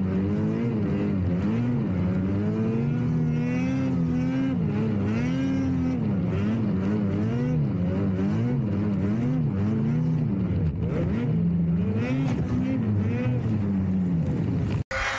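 Mountain snowmobile engine revving up and down over and over as the rider works the throttle through deep powder. The sound cuts out briefly just before the end.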